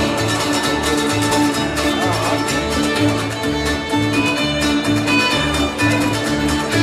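Bluegrass band playing an instrumental passage: fiddle to the fore over strummed acoustic guitars and mandolins, with an upright bass keeping a steady two-beat pulse.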